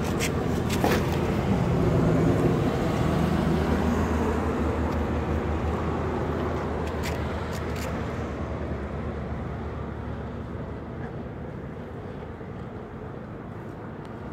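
A motor vehicle engine running nearby, a steady low rumble that is loudest about two seconds in and slowly fades. A few clicks from handling the cardboard box come near the start and again about seven to eight seconds in.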